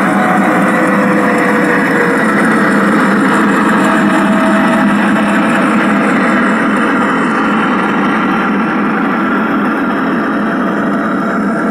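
Recorded diesel engine sound of a G-scale Piko Ludmilla locomotive model, played through its onboard loudspeaker as it runs past pulling freight wagons, mixed with wheels rolling on the track. The sound is steady and eases off slightly near the end as the locomotive passes.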